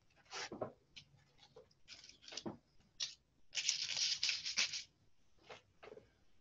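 A bundle of boxwood sprigs brushed and dabbed across a paper bag, with short, scratchy rustling strokes and one longer scrubbing stroke past the middle.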